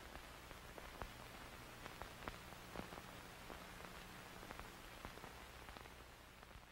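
Near silence: a faint steady hiss and low hum with scattered faint clicks, fading out near the end.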